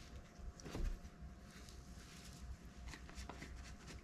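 Faint handling noises from working on a bicycle inner tube: a soft knock about a second in and a few small clicks and taps around three seconds in.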